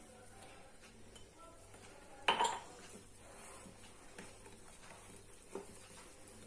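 Wire whisk stirring flour into cake batter in a bowl, with faint scraping and one louder knock of the whisk against the bowl a little over two seconds in.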